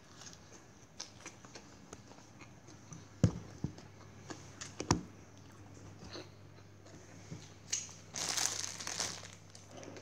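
Handling noises: two sharp knocks, a little past three seconds in and again near five seconds, among small scattered clicks. Near the end comes a crinkling rustle of about a second, typical of a plastic bag being handled.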